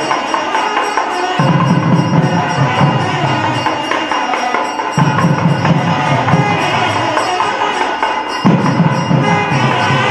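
Hindu temple puja music played during the lamp offering: continuous jingling percussion with ringing tones, and a lower, heavier part that drops out and comes back every few seconds.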